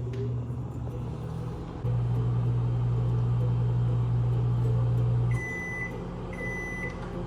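Microwave oven running with a steady low hum while melting butter and marshmallows, louder for a few seconds mid-way. The hum drops and the oven gives long high beeps near the end, signalling the heating cycle is done.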